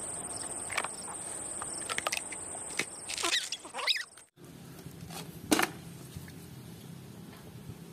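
Soundtrack of a hatching baby dinosaur: a steady high insect-like chirring with clicks of eggshell breaking and several high rising and falling squeaks from the hatchling, cutting off suddenly about four seconds in. After the cut, a low steady hum with one sharp knock.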